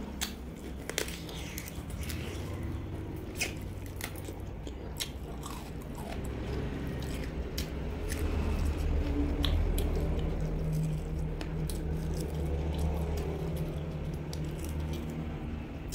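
Close-up biting and chewing of roast duck, with scattered crisp crunches and clicks as meat is gnawed off the bones. A steady low hum runs underneath.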